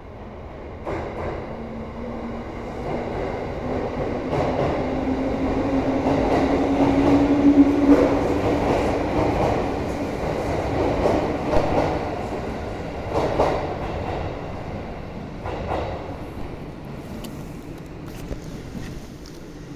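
Nikko Line 'Iroha' 205-series electric train pulling away and passing close by: a motor hum rising slightly in pitch as it gathers speed, wheels clacking over rail joints several times, loudest as it passes about eight seconds in, then fading as it moves off.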